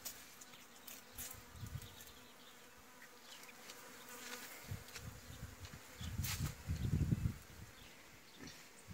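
A heavily pregnant sow, close to farrowing, rooting in dry straw bedding with faint rustles, then a run of low grunts about six seconds in.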